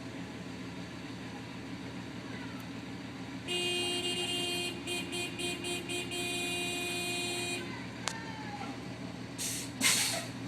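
Car horn held for about four seconds, broken by several quick stutters in the middle, over a steady low rumble of idling vehicles. Near the end come two short, sharp hisses, the second the loudest sound.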